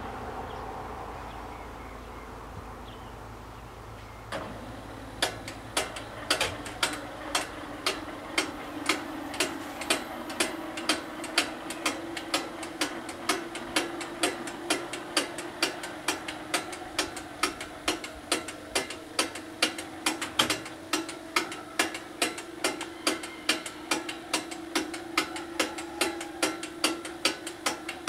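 A passing train's rumble fades away. About four seconds in there is a click, and then the level crossing's electromechanical bells start striking in quick, even strokes, about two and a half a second, over a steady low tone. They ring as the barriers lift to reopen the crossing once the train is gone.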